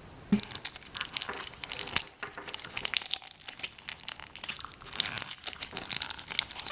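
Wrapper packaging of a surprise toy crinkling and tearing as it is handled and opened by hand, a dense run of irregular crackles.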